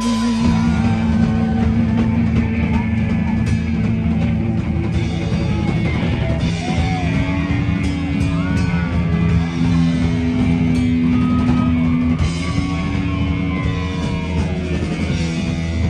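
A live heavy-metal band playing loud: distorted electric guitars with held and bending notes over bass guitar and a drum kit.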